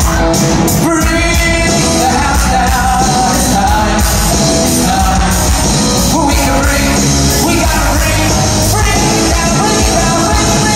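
Live band music with a male lead singer singing into a microphone, loud and continuous.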